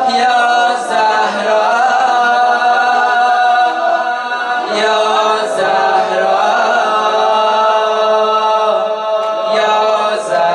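An unaccompanied mourning lament (noha) for Fatima Zahra, sung as a chant by several voices without instruments. The notes are long and drawn out, and a new phrase begins roughly every five seconds.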